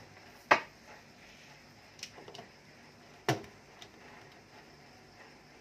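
A few sharp clicks and knocks from handling: a small electric water pump set down on a workbench and a power plug pushed into the socket of a 12 V-to-220 V inverter. The sharpest click comes about half a second in, with a few light ticks around two seconds and a heavier knock just after three seconds.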